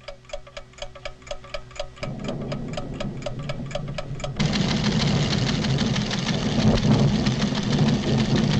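Rapid, even ticking of a seismograph's clockwork, about four ticks a second. About two seconds in a low rumble joins, and about four seconds in it swells into a loud, dense rumbling that drowns the ticking: the volcano's tremors.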